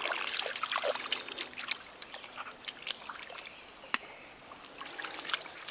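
Water splashing and trickling in a shallow river. The splashing is louder in the first second or two, then dies down to scattered small splashes and ticks.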